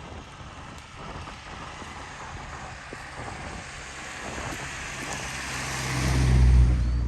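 A motor vehicle passing close by: its tyre and engine noise grows steadily louder, is loudest about six seconds in, then starts to fade.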